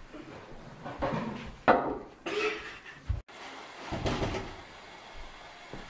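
A few sharp knocks and rattles from a glass-panelled door being handled, the loudest a little under two seconds in.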